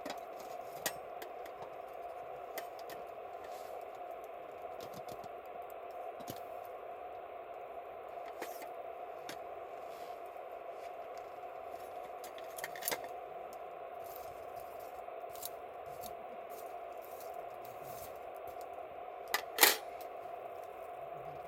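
Wood campfire crackling: scattered sharp pops over a steady hiss, with a louder double crack near the end.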